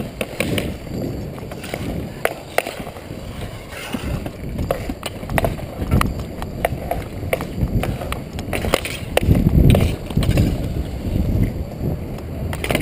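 Roller-hockey skating heard close up: skate wheels rolling over the rink surface and wind rumbling on the microphone, with frequent sharp clacks of sticks and puck. The rumble swells briefly about nine seconds in.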